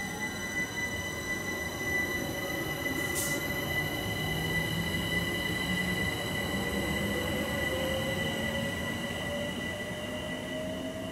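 London Overground Class 378 Electrostar electric train pulling away, its traction motors giving a whine that slowly rises in pitch as it gathers speed, over a steady high squeal from the wheels. A brief hiss comes about three seconds in.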